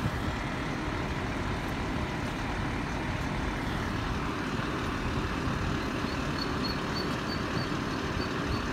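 Steady low rumble of street traffic and engines. Faint high chirps repeat about four times a second over the last few seconds.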